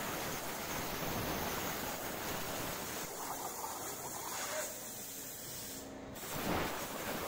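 Hypertherm Powermax85 plasma torch on a CNC table hissing steadily as it cuts steel plate. The arc stops about three seconds in and a softer air hiss carries on. A short loud burst near the end is the arc firing again to pierce the next cut, and the full cutting hiss returns.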